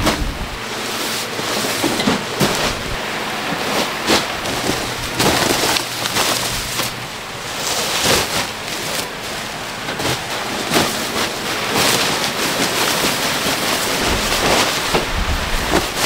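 Woven sacks full of fresh corn on the cob being heaved, dropped and shoved onto a stack: rough rustling and scraping of sacking and husks with irregular dull thuds.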